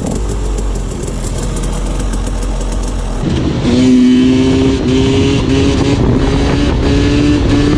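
Off-road dirt bike engine running under throttle. About three seconds in the sound changes abruptly to a strong, steady engine note that climbs slowly in pitch.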